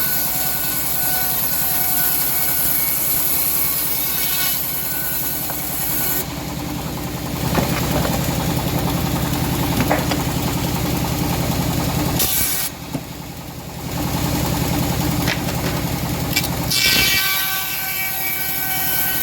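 Engine of a homemade bandsaw running steadily while sawing hard teak. Its tone shifts a few times, and it dips briefly about thirteen seconds in.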